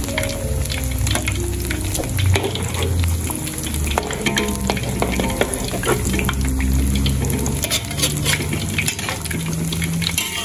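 Battered pineapple slices deep-frying in hot oil in a wok: a dense, steady crackling sizzle, while a spatula and tongs stir and turn the fritters in the oil.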